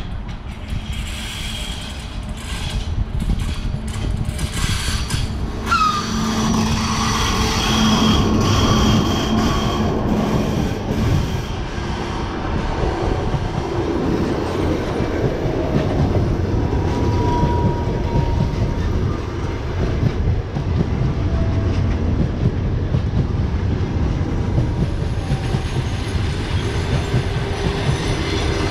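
An EP1M electric locomotive passes close by with a steady hum and a pitch that drops as it goes past, about six seconds in. Its long train of passenger coaches follows, rolling by with a rumble and a clickety-clack of wheels over the rail joints, and now and then a brief wheel squeal.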